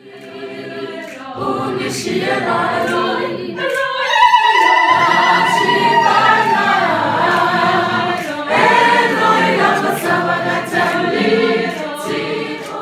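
A choir of many voices singing together, growing louder over the first few seconds.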